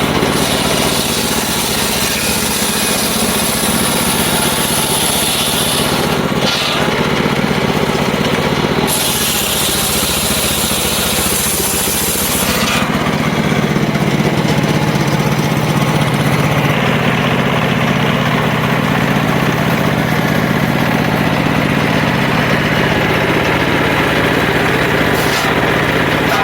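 Circular saw cutting wood, running steadily throughout. A high-pitched cutting noise stops and starts in the first half and drops away about halfway through.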